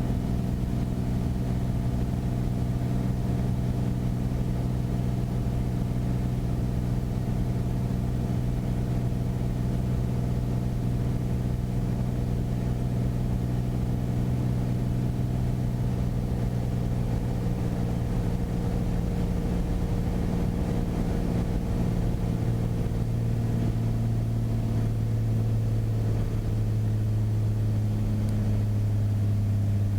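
Single-engine Beechcraft Bonanza's piston engine and propeller droning in the cockpit on final approach with full flaps, a steady hum whose pitch eases lower in the second half as power is reduced for landing.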